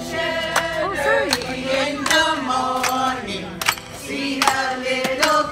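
A group of men and women singing together, with hand claps keeping a steady beat about every 0.7 seconds.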